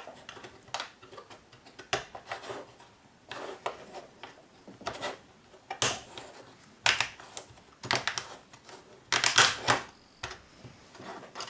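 Irregular clicks and rattles of 3D-printed plastic parts being handled and pressed together by hand, snapping into place, with louder runs of clicking in the second half.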